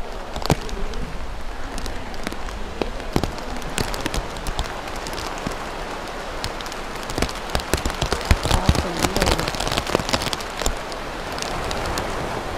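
Rain falling steadily, with many sharp raindrop hits, thickest in the second half.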